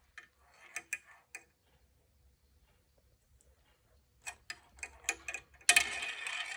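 A marble going down a marble run. It makes a few sharp clicks in the first second and a half, then a pause, then a quick run of clicks about four seconds in. From about five and a half seconds it rattles steadily as it rolls along the track.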